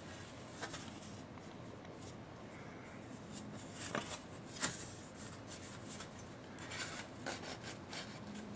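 Thin sheet-metal body panels being handled: light clicks, taps and rubbing as the cut-out pieces are picked up and laid down, with a couple of sharper clicks about four seconds in and a run of small ticks near the end.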